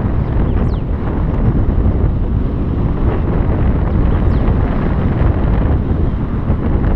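Wind buffeting the microphone: a loud, steady rumble of rushing air.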